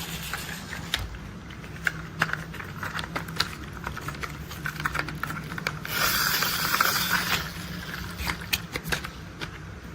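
Plastic toy construction vehicles being handled and tapped: scattered sharp clicks and knocks, with a louder rasping roll or scrape for about a second and a half just past the middle.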